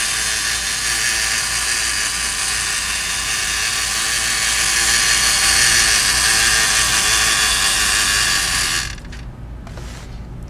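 The Magforce control tower's toy gear mechanism running steadily as it raises the striped barrier, then stopping abruptly near the end when the barrier reaches the top.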